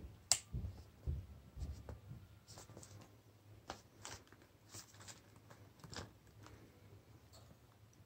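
Speaker box being handled and opened: scattered scrapes, taps and rustles of cardboard packaging, with a sharp click about a third of a second in, thinning out over the last two seconds.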